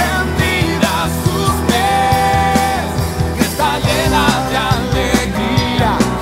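Rock-style worship song: a voice singing over drums and bass with a steady beat, one note held for about a second near the middle.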